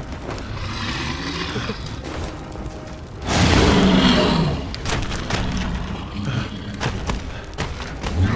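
Film sound design of a giant wolf: low growls under a tense music score, then a sudden loud roar a little after three seconds in that lasts over a second.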